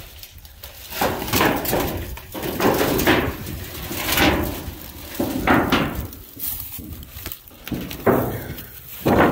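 Rusty corrugated metal roofing sheets being lifted and flipped over on dry grass. Each lift gives a rattle and clunk of thin sheet metal, with dry grass and leaves rustling, several times, loudest about 8 seconds in.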